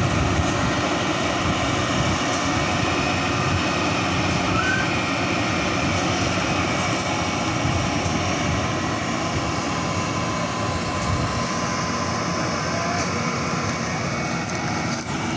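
Combine harvester running steadily, its engine and machinery making a continuous dense mechanical noise.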